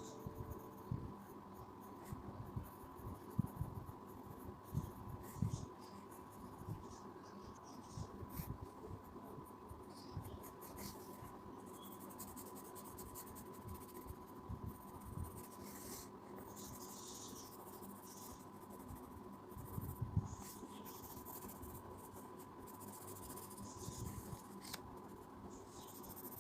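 Pencil scratching on paper in faint, irregular strokes and shading passes, over a faint steady whine.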